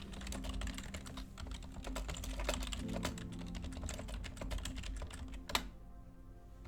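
Fast typing on a computer keyboard: a dense run of key clicks for about five and a half seconds, ending with one sharper click, then a pause.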